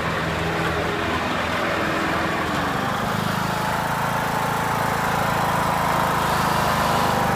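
Riding lawnmower engine running steadily as the mower comes closer, growing a little louder. Its note drops about three seconds in.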